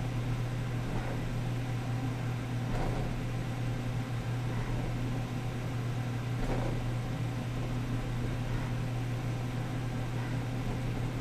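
Steady low hum with an even hiss of moving air in a centrifuge trainer's cockpit, heard over the intercom, with a few faint soft rustles.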